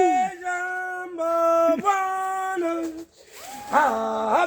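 A single voice singing unaccompanied: long held notes joined by swooping slides up and down, with a brief break about three seconds in.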